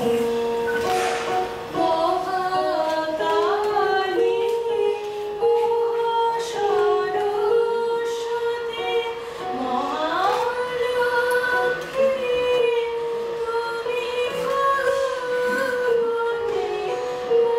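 A woman singing a melody to her own electronic keyboard accompaniment, the keyboard holding long sustained notes beneath the gliding vocal line.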